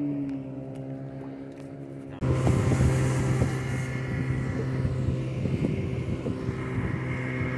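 Boat outboard motor running with a steady hum; about two seconds in the sound jumps suddenly louder and rougher, with water and wind noise over a deeper, steady motor note.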